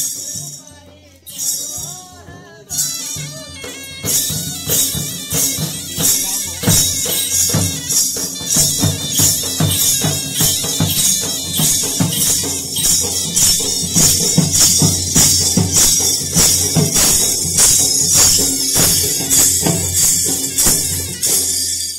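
Folk-dance drumming: drums beaten in a fast, steady rhythm with a bright metallic jingling over the beats. A few scattered strokes come first, then the full beat runs on from about four seconds in.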